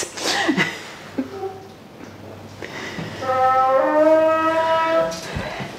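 A toilet-cubicle door swinging open, its hinge giving a drawn-out creak of about two seconds at a steady pitch that steps up partway through.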